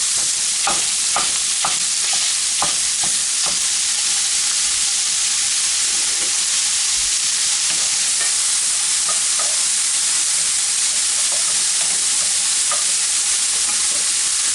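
Sausage sizzling steadily as it browns in a frying pan, while a Mix 'N Chop tool scrapes and knocks against the pan breaking up the meat, with strokes coming thick in the first few seconds and only now and then after that.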